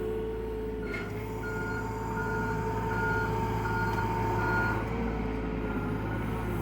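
Excavator travel alarm beeping, about one and a half beeps a second, over the steady running of the machine's diesel engine.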